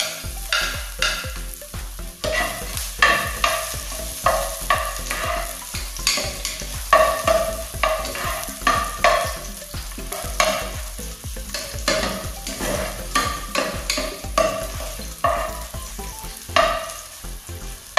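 Minced garlic frying in hot oil in a pot, sizzling steadily while a spatula stirs and scrapes against the pot in repeated short strokes.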